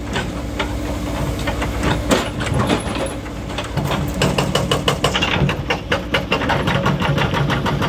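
Excavator-mounted hydraulic breaker hammering rock, a rapid run of blows starting about halfway through and stopping near the end, over the steady running of diesel engines.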